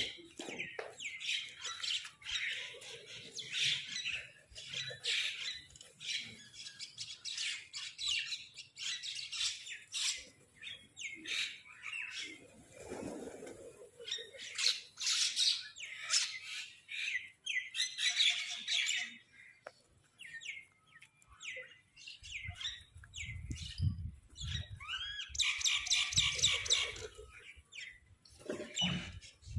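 Crows and mynahs calling: many short squawks and chirps overlapping one another, with a quick rattling run of calls near the end.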